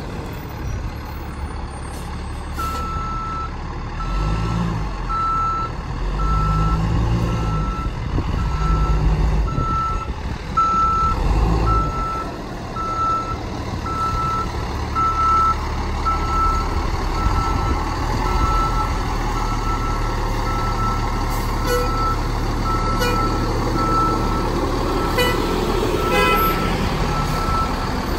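Fire engine's backup alarm beeping at a steady rate, a little faster than once a second, starting a few seconds in, over the low running of its diesel engine, which revs up in stretches as the truck reverses.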